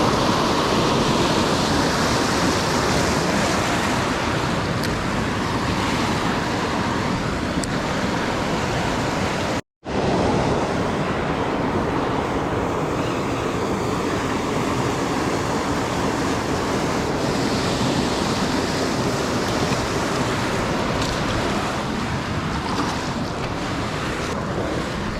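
Steady rushing of river water mixed with wind buffeting the microphone, cut off by a brief dropout just under ten seconds in.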